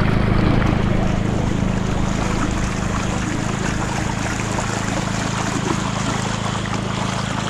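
Steady low motor hum under water rushing along a kayak's hull as it moves up the creek.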